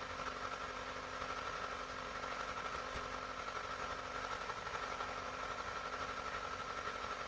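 Steady background hum and hiss with a constant high tone, no siren yet.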